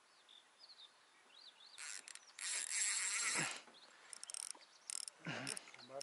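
Fishing reel being wound in, a rattling gear whir: one long burst about two and a half seconds in, then several shorter bursts near the end. Faint bird chirps at the start.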